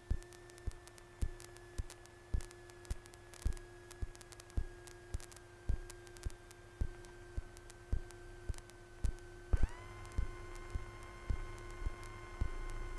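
Faint electrical noise on the aircraft radio audio between transmissions: a steady hum with sharp clicks about twice a second, and a new higher tone that comes in about ten seconds in.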